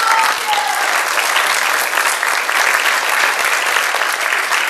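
Audience applauding, a dense even clapping throughout. A voice calls out briefly at the start.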